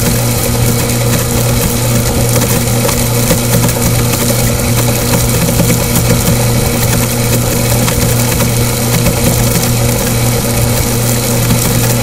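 INNOMAG TB-Mag magnetic-drive centrifugal pump and its electric motor running steadily, a constant hum over a rushing hiss as it circulates water laden with small plastic beads.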